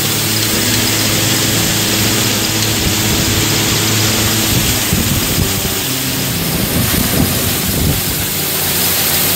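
Combine harvester running while harvesting wheat: a steady engine hum under the constant noise of its threshing machinery. The engine note shifts about halfway through.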